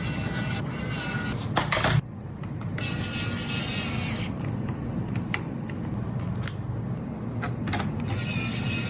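Mini electric screwdriver's small motor running as it drives screws into a plastic toy, with clicks and rubbing from the parts. The sound drops abruptly about two seconds in.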